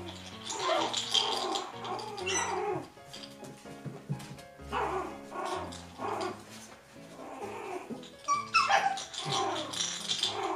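Poodle puppies yipping and barking in play, in short bursts about a second apart, some calls sweeping upward, over background music.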